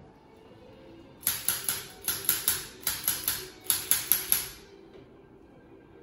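Rapid sharp mechanical clicks from a handheld chiropractic adjusting instrument fired against the patient's back, about fifteen in short runs of three or four at roughly five a second.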